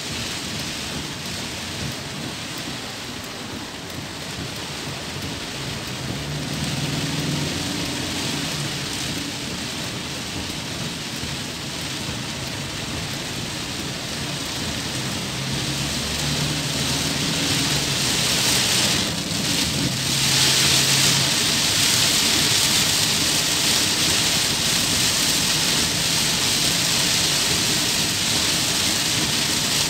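Heavy rain pelting the windscreen and roof of a moving car, heard from inside the cabin, with the hiss of tyres on the flooded road. It grows steadily louder and is heaviest in the last third.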